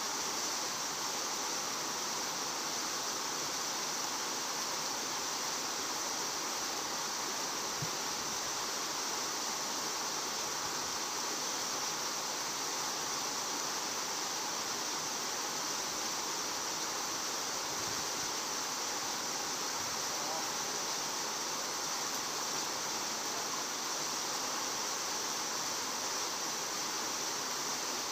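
Steady hiss of water flowing in a concrete irrigation channel, with a constant high-pitched band over it and no change throughout.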